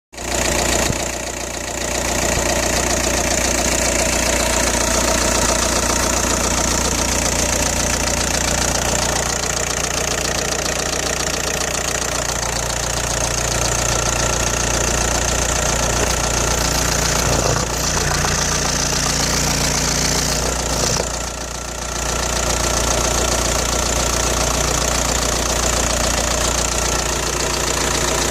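Audi A4 B6's 1.9 TDI AWX pumpe-düse diesel engine running steadily with a rattle. The rattle began after the injector O-rings and copper washers were replaced.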